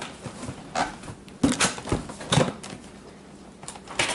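Handling noise: a handful of light, irregular knocks and taps, like shoes and a shoebox being moved about.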